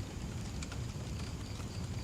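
Wood fire burning with a steady low rumble and scattered sharp crackles. A faint, high, evenly pulsed chirping joins about a second in.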